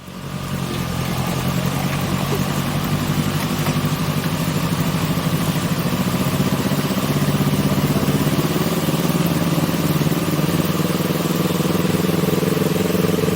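Sports motorcycle engine running steadily at low revs, its pitch creeping slightly higher near the end.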